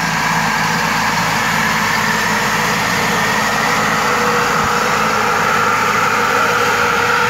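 Kubota B2741 compact tractor's three-cylinder diesel running steadily while it tows an orchard mist sprayer, with a steady high whine from the sprayer's fan.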